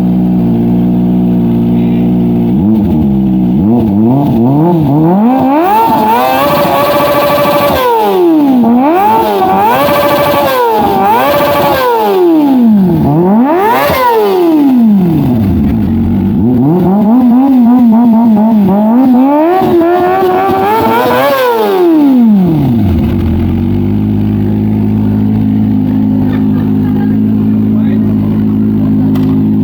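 Kawasaki ZX-25R's 250 cc inline-four with an SC Project short slip-on exhaust, idling, then revved up and down repeatedly for about twenty seconds, the pitch climbing high and dropping back several times, before settling back to a steady idle.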